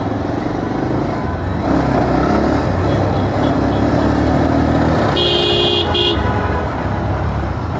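Bajaj Pulsar 220F's single-cylinder engine running as the motorcycle speeds up from a crawl, with road and wind noise on the bike-mounted microphone. About five seconds in, a vehicle horn honks: one longer blast and a short one.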